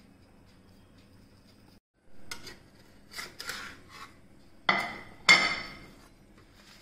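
Metal pizza spatula scraping and knocking against a black metal baking tray as it is worked under a baked pizza, with two sharp, ringing metal clanks about five seconds in. A faint steady hum sits underneath for the first two seconds.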